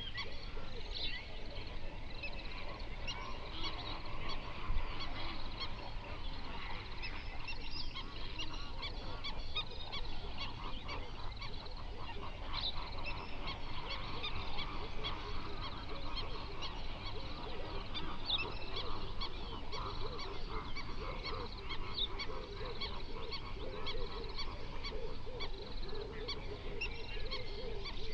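A large flock of flamingos honking and chattering, a dense, unbroken mass of many overlapping short calls.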